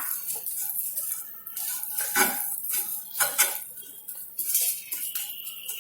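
A spoon stirring in a pan of melted jaggery and ghee as dry ginger powder goes in, clinking and scraping against the pan with scattered sharp knocks.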